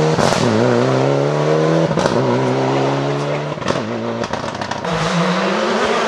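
Mitsubishi Lancer Evolution rally car accelerating hard through the gears. The engine note climbs and drops at each upshift, about two seconds apart, with a sharp crack at each shift. A little before the end it lifts off into a quieter crackling, and then a lower, steadier engine note from another rally car takes over.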